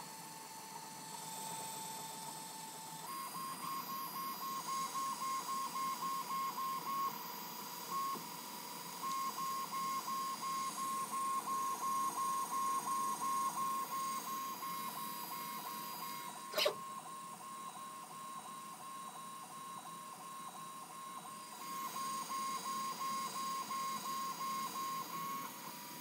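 Creality 3D printer's stepper motors whining as the print head lays down the first layer: a steady high hum that breaks into quick pulses, about three to four a second, as the head makes short back-and-forth moves. A single sharp click about two-thirds of the way through.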